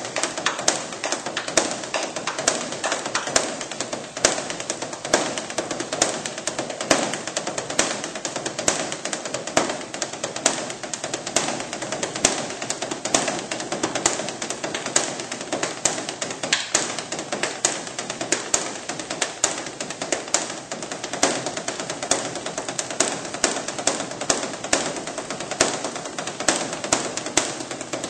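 Korean Buddhist temple drum (beopgo) beaten by monks with two wooden sticks: a fast, continuous stream of sharp strikes and taps, with regular louder accents.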